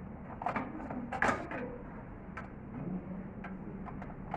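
Scattered sharp clicks and knocks of hardware being handled as a desktop computer's CPU cooling fan is worked loose from the processor, over a steady low background noise.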